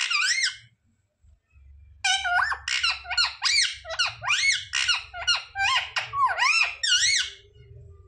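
Male Indian ringneck parakeet giving a rapid run of short, high, squeaky calls that slide quickly up and down in pitch, after a brief burst at the start and a pause of about a second and a half.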